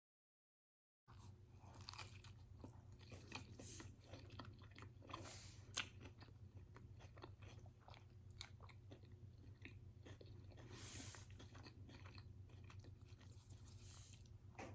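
A person chewing bites of a chicken wrap close to the microphone: faint, irregular small clicks and crunches of mouth sounds over a steady low hum, starting after about a second of dead silence.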